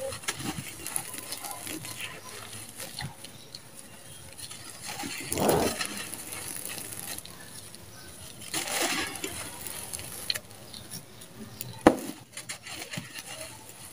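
Dry, dusty red sand-cement crumbling in the hands and pouring from the fingers onto a pile in a gritty patter. There are louder pours about five and nine seconds in, and a single sharp click just before the end.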